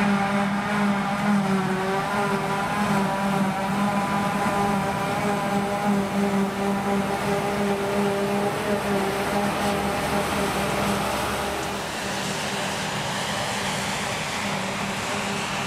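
Claas Jaguar 950 self-propelled forage harvester working in the field, chopping grass into a trailer, with a steady humming drone of its engine and chopper. About twelve seconds in the hum fades back and a more distant, hissy machine noise takes over.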